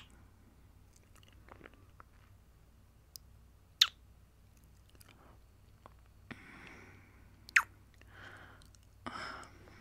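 Close-miked kissing sounds: two loud, sharp, wet kiss smacks about four seconds apart, with fainter lip clicks and a few soft breaths in the second half.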